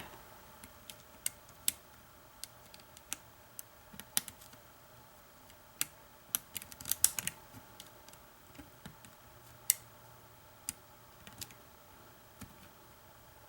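Scattered small metallic clicks and ticks from a pick and tensioner working the wafers of a car ignition lock cylinder during single-pin picking. The clicks come irregularly, with a quick flurry about seven seconds in and one sharper click near ten seconds.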